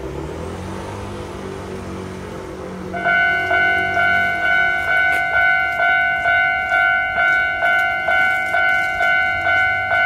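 Japanese railway level-crossing alarm on the Hankyu Senri Line starting up about three seconds in. Its electronic bell rings about twice a second, a bright clang with several steady tones, warning that a train is coming and the barriers are about to drop. Before it starts, a road vehicle's engine hums.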